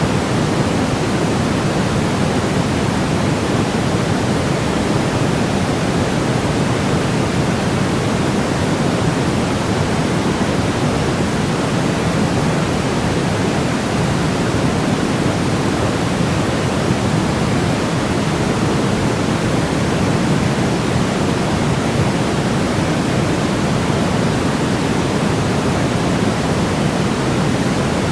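Steady, unbroken electronic white noise, even throughout, with more weight in the lows and mids than the highs, close to pink noise.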